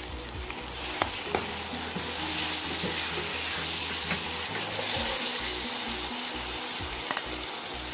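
Hot oil sizzling as a wet ground gongura (sorrel leaf) pickle paste is stirred through it in a pan. The sizzle grows louder after about a second. A spoon knocks against the pan twice around then.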